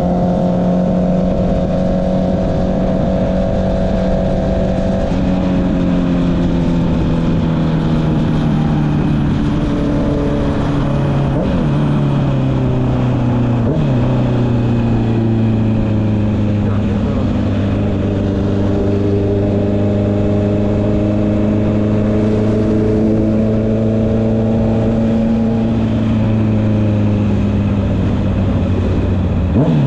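Honda CB650R's inline-four engine running through an Akrapovic exhaust as the bike is ridden. The note eases down in pitch over the first half with two brief breaks in it, then holds at a lower, steady pitch. A quick sharp rise in revs comes right at the end.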